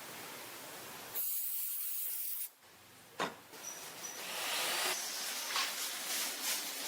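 A hiss that starts about a second in and cuts off suddenly. A sharp click follows, then another hiss that slowly grows louder.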